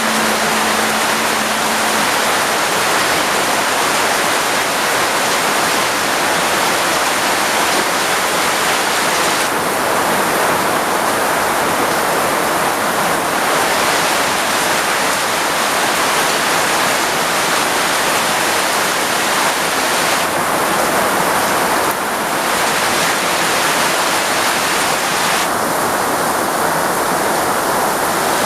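Heavy monsoon rain falling in a steady, dense downpour.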